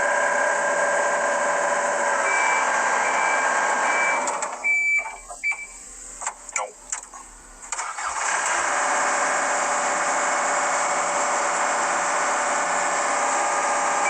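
Excavator diesel engine running, cutting out about four and a half seconds in amid a few short warning beeps and clicks, then starting again about eight seconds in and running steadily. The machine has a fault that makes it keep shutting off while it is running.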